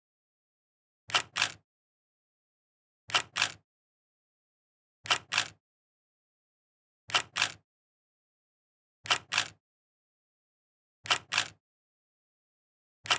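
Sharp double clicks, two in quick succession, repeating evenly every two seconds with dead silence between them.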